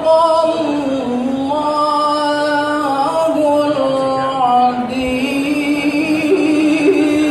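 A man's voice reciting the Quran in the melodic tilawah style through a microphone, holding long drawn-out notes that step up and down in pitch with ornamented turns.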